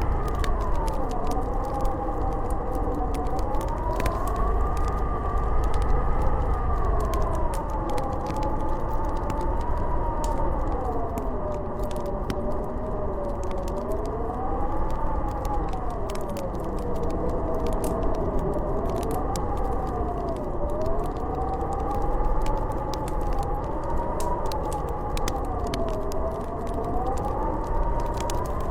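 Howling blizzard wind: a wavering whistle that slowly rises and falls in pitch over a low rumble, with a fireplace crackling.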